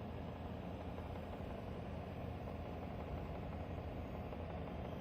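Panasonic F-YV32LX inverter dehumidifier running at maximum fan speed: a steady fan rush over a low hum. The owner reports it as abnormal fan noise and compressor resonance.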